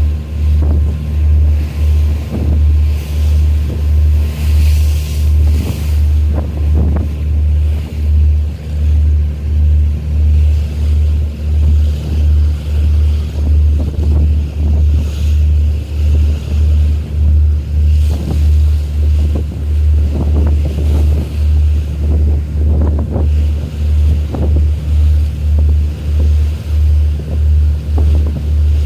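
A boat's engine runs with a deep, even throb of about two beats a second, with wind and water noise over it.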